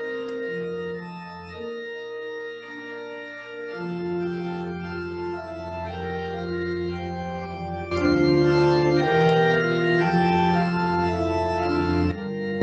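Two-manual electronic church organ playing slow, held chords. A deep bass line comes in about four seconds in, and the sound grows louder and fuller at about eight seconds.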